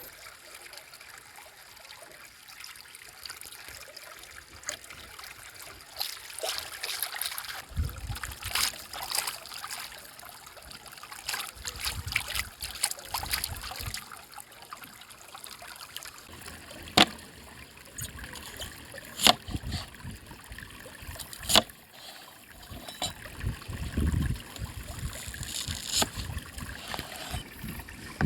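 River water flowing and trickling steadily. Three sharp knocks come in the second half, and there are several stretches of low rumbling.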